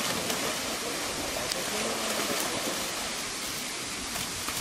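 Water splashing and churning as two tigers wrestle in a shallow pool, over a steady rushing hiss.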